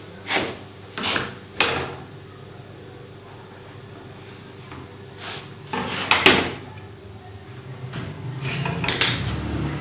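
Hand tools handled on a wooden workbench: a few short knocks and scrapes as a steel combination square and a wooden strip are set down and shifted on the bench top, with a longer stretch of rubbing near the end as the square is held and a pencil drawn along it.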